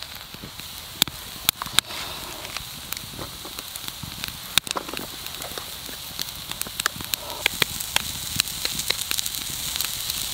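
Wood campfire crackling with many sharp pops, over a steady sizzle of food frying that grows louder toward the end.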